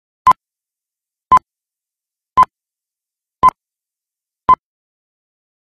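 Film-leader countdown beeps: five short, identical beeps at the same pitch, about one a second, with silence between.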